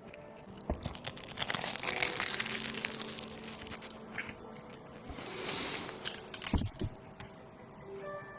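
Crunchy food being bitten and chewed close to the microphone, a dense crackling crunch that comes in two spells with a couple of sharp knocks between them.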